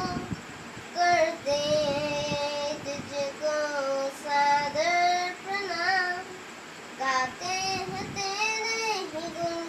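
A boy singing a Hindi Christian devotional song alone, in long held, wavering phrases, pausing briefly twice between lines.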